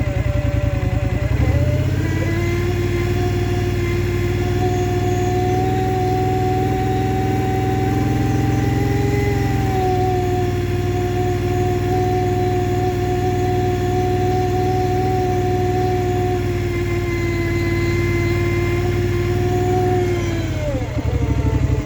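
Polaris Scrambler XP 1000 S ATV's twin-cylinder engine idling, then raised to a steady higher speed about a second and a half in and held there, easing back down to idle near the end.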